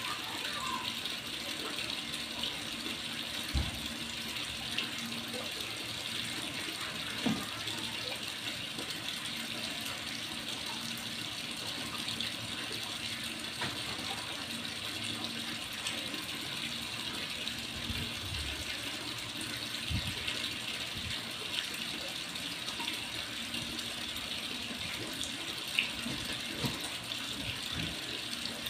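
A steady rushing hiss, with a few soft thumps as kittens pounce and scramble around a cardboard box on a tiled floor.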